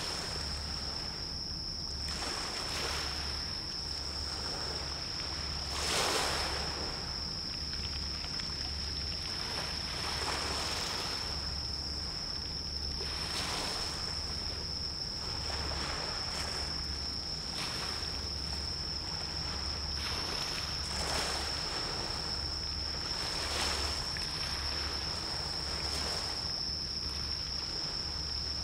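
Small sea waves washing in, one every two to three seconds, over a steady hiss of water, with a thin steady high-pitched tone running underneath.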